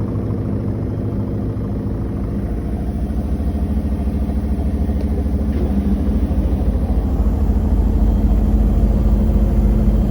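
Koenic KWM 8212 A INV top-loading washing machine in its spin cycle: a steady low hum that grows louder over several seconds as the spin builds. The lid rattles along with it because it does not close properly.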